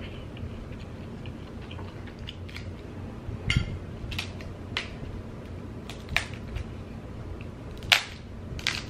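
Cooked Dungeness crab leg shells cracking in the hands: about six sharp snaps, irregularly spaced, starting a few seconds in, the loudest near the end.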